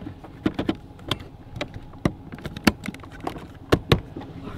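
Fish-finder display being fitted onto its swivel mount: a string of irregular sharp plastic clicks and knocks as it is turned and locked in place, the loudest pair near the end.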